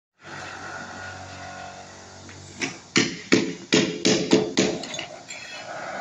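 Hammer blows while fitting autoclaved aerated concrete wall panels: a quick run of about seven sharp strikes, roughly three a second, starting a little before halfway and tapering off, over a steady low hum.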